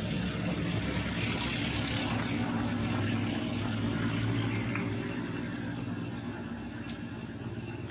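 A steady engine hum that fades over the last few seconds, with a thin, steady high-pitched tone above it.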